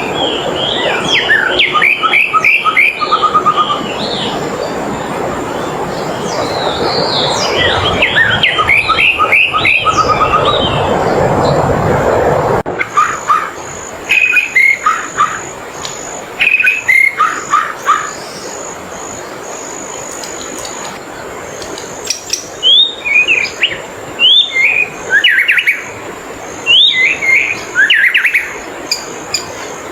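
A songbird singing in short phrases of quick chirps, one phrase every second or two. A steady background rush under the first part stops suddenly about twelve seconds in.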